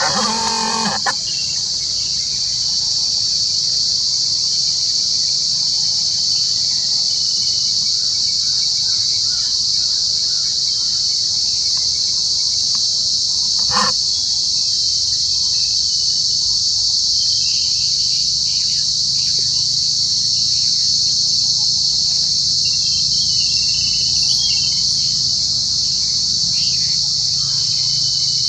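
Steady, high-pitched insect chorus, with a few faint chirps late on.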